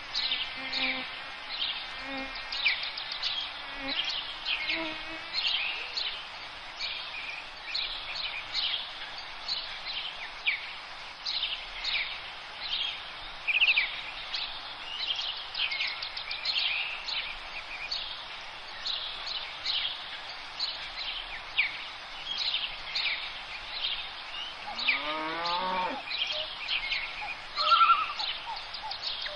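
Songbirds singing outdoors, a steady run of short, quick chirps and trills. About 25 s in, a single long call falls steeply in pitch, followed near the end by a brief higher note.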